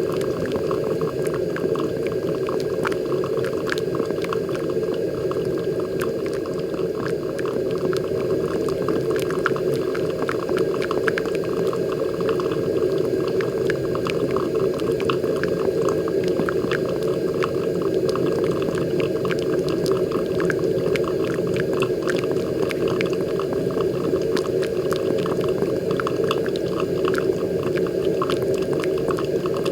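Moccamaster KBGV Select drip coffee maker brewing: a steady bubbling and trickling of hot water boiling up through the machine and raining from the spray head onto the coffee grounds, with many small ticks and pops.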